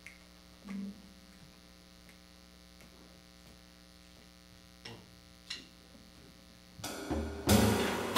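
A steady electrical mains hum with a few faint clicks, then about seven seconds in a jazz combo of guitar, double bass and drums starts playing a bossa nova.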